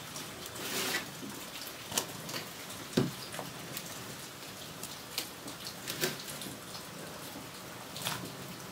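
Kelp broth at a rolling boil in a stainless steel pot, bubbling and popping in a dense patter. A few sharper knocks and splashes come as pieces of napa cabbage are dropped in; the loudest is about three seconds in.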